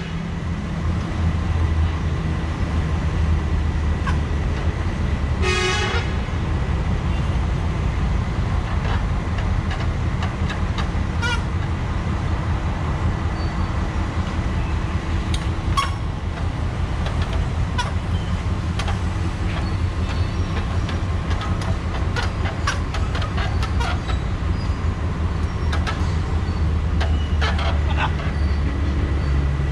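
Steady low street-traffic rumble, with a short vehicle-horn toot about five seconds in and scattered light clicks and knocks.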